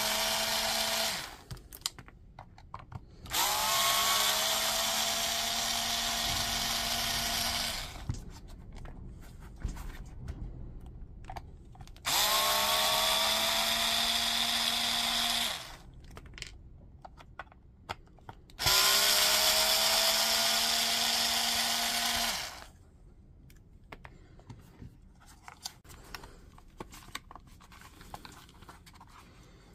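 Cordless electric screwdriver backing out the case screws of a Hilti B22 lithium-ion battery pack: the motor spins up with a rising whine and runs steady for about four seconds at a time, three times after the tail of an earlier run that stops about a second in. Near the end, light clicks and plastic rattles as the case is pulled apart.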